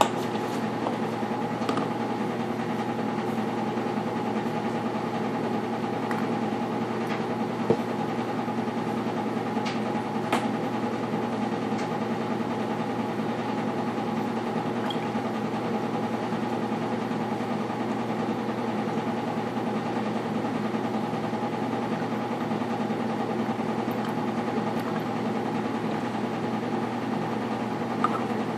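A steady mechanical hum made of several constant tones, with a few light knocks.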